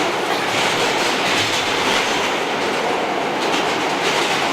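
Subway train running, heard from inside the car: a steady noise of wheels and car body on the track.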